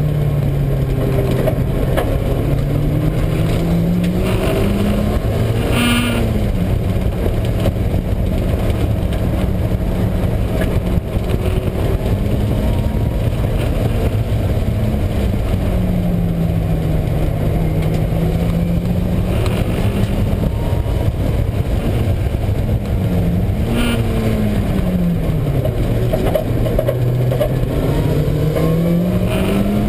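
Mazda Miata's four-cylinder engine revving up and dropping back repeatedly on track, over a loud, steady low drone. The drone comes from a failing wheel bearing, which the driver first took for a bad transmission and noticed mainly under compression.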